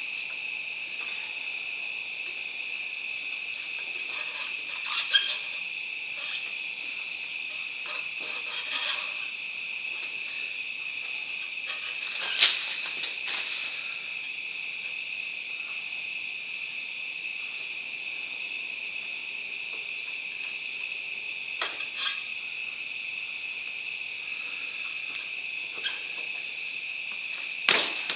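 A steady, high-pitched insect drone, like cicadas or crickets, runs on unbroken. Over it come a few short metallic clicks and knocks of motorcycle wheel parts being handled and pushed into place, the loudest about five and twelve seconds in.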